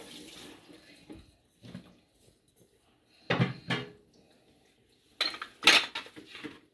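Spatula and bowl knocking against a nonstick pan while yogurt is scraped onto chicken. A few faint taps, two sharper knocks about three seconds in, and a quick cluster of knocks near the end, which is the loudest.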